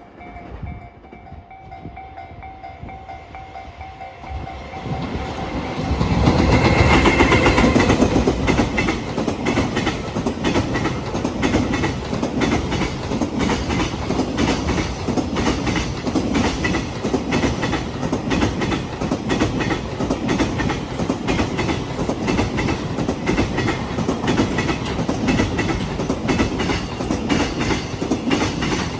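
Freight train passing close by on jointed rail: the sound builds and peaks as the locomotive comes past about six seconds in, then the wagons' wheels beat a steady, rapid clickety-clack over the rail joints. Before the train arrives, a level-crossing warning bell rings faintly.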